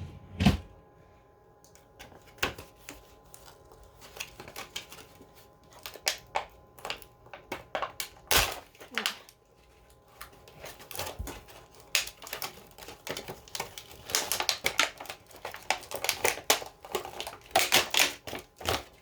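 Smoke alarm box contents being handled and unpacked: an irregular run of sharp clicks and taps with crinkling rustles, busiest in a dense cluster near the end.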